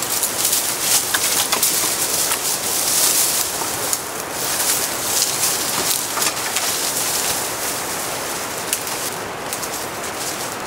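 Steady rustling hiss of outdoor forest ambience, with a few short chirp-like sounds; it eases off over the last few seconds.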